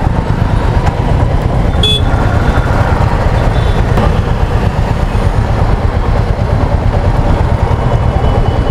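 Wind buffeting the microphone over a motorcycle running along a city street in traffic, a steady heavy rumble. A short horn toot sounds about two seconds in.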